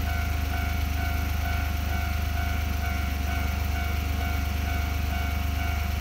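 Japanese level-crossing warning bell ringing in a steady repeating electronic ding, signalling that the barriers are down for an approaching train. Under it runs a low, steady engine idle.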